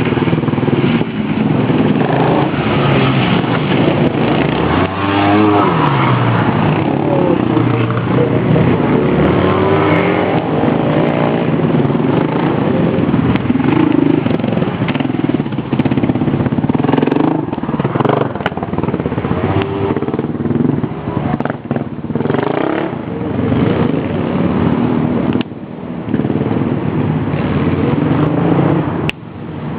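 Dirt bike engine being ridden hard, its revs rising and falling repeatedly as the throttle is opened and closed, easing off briefly twice near the end.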